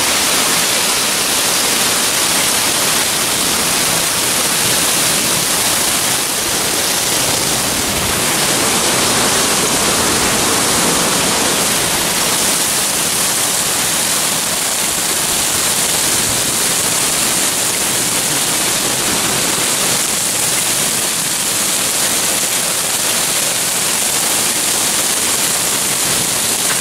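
Hail and torrential rain pelting down on a street, a loud, steady, dense hiss with no letup.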